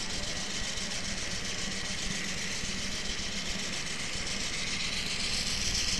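Locomotive engine running steadily with a low hum, a hiss swelling about five seconds in.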